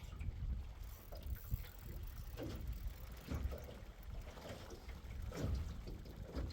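Low, uneven rumble of wind on the microphone out on a fishing boat, with faint splashy water noise.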